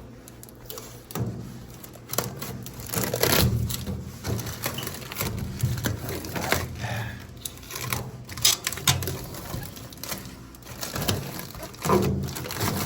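Irregular crackling, scraping and knocks: blue protective plastic film being peeled and scratched off a stainless steel microwave.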